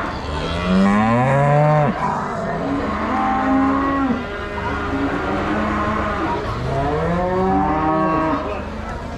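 Several Aberdeen Angus cattle mooing, their long calls overlapping one another. The loudest calls come in the first two seconds and again near the end.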